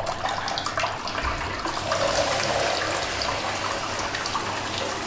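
Water running into a toilet cistern as it refills through the inlet valve, a steady rushing hiss that grows brighter a little under two seconds in.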